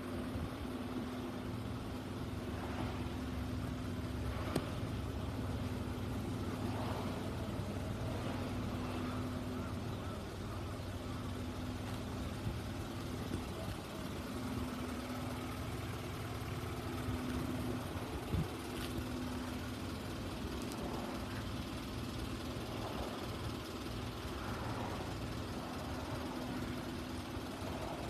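Isuzu Elf dump truck's diesel engine idling steadily.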